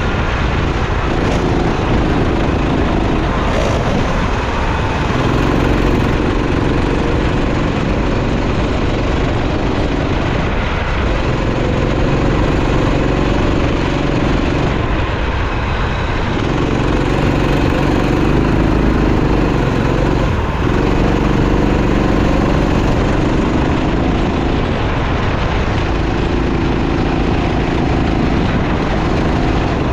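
Racing kart engine running at speed, holding a steady high pitch for a few seconds at a time, then dropping off briefly about every four to six seconds as the throttle comes off and goes back on. A steady rushing noise lies under it throughout.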